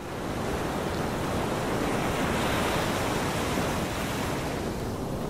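Ocean surf and wind, a steady rushing noise.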